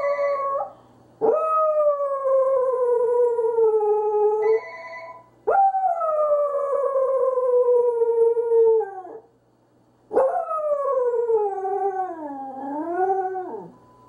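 Pembroke Welsh Corgi howling in long drawn-out howls, each starting high and sliding down in pitch, the last one wavering up and down before it stops. A steady ringing tone sounds briefly at the start and again between the second and third howls.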